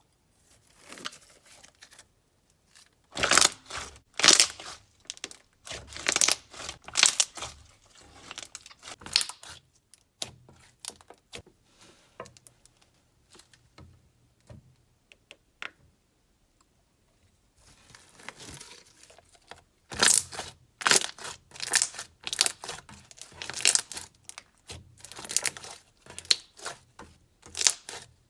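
Slime being squished and pulled by hand, making bursts of wet crackling and popping, with a quieter lull midway.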